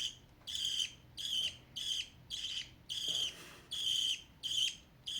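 Baby budgerigar calling over and over: short, high chirps about two a second, evenly spaced.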